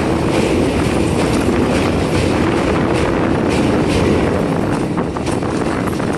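Electric local train (EMU) running over a steel truss rail bridge, heard from an open doorway: a steady rumble of wheels on rails with wind buffeting the microphone. It grows a little quieter near the end as the train comes off the steel span.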